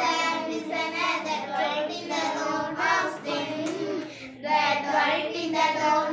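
Group of schoolgirls reciting an English poem together in unison, in a chanting, sung voice, with a short pause about four seconds in.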